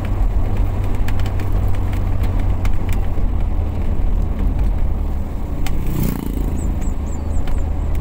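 Steady engine drone and road noise inside a moving car's cabin, with a few light clicks and rattles and a brief louder sound about six seconds in.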